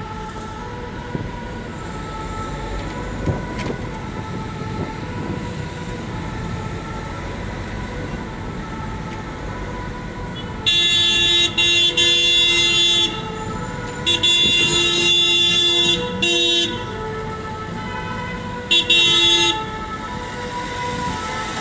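Car horn honking in three long blasts, the first two over two seconds each and the last about a second, over the steady rumble of slow city traffic.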